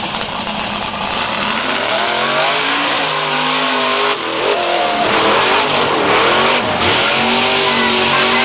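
Lifted mud-bog truck's engine revving hard as the truck spins its big tyres through the mud. The pitch climbs and falls several times, with short breaks in the note about halfway through and near the end.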